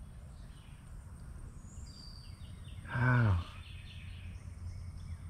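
A man's drawn-out groan of disappointment, falling in pitch, about three seconds in, over steady low background noise with faint bird chirps.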